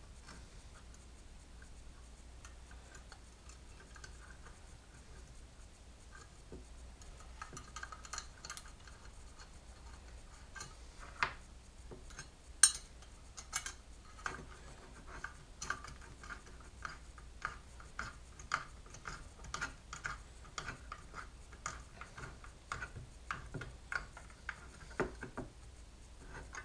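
Light metal clicks and scrapes from a T-handle Allen wrench turning the screws of a smooth idler bearing on an X-Carve gantry plate. Faint at first, then a run of small ticks about two a second, with a couple of sharper clicks a little before the middle.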